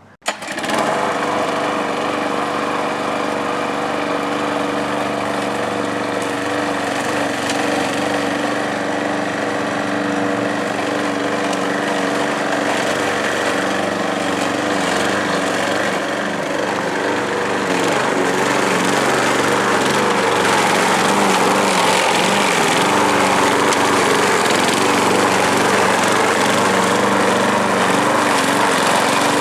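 Walk-behind lawn mower's small engine running steadily, spinning a homemade wooden blade; the sound grows a little louder about two-thirds of the way through.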